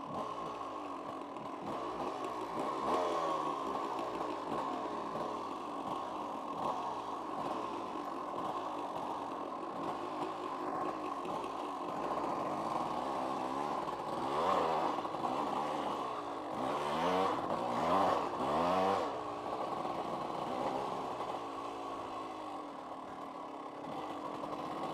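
1990s KTM two-stroke dirt bike engine running under way on a trail, its revs rising and falling with the throttle, with several quick rev swings about two-thirds of the way through.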